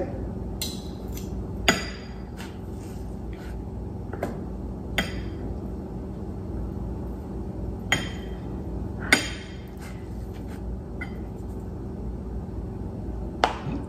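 Spoon clinking and scraping against a bowl as stuffing is spooned into beaten eggs and mixed in: scattered sharp clinks, a second or more apart, the loudest about two, eight and nine seconds in.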